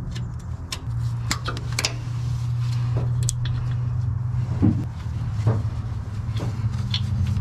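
Scattered light clicks and knocks of a brake line and plastic zip tie being handled and fastened under the vehicle, over a steady low hum.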